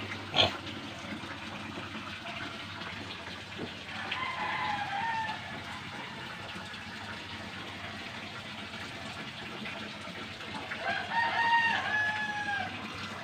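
A rooster crowing twice, once about four seconds in and again near the end, each crow a wavering call lasting a second or two. There is a single sharp knock about half a second in.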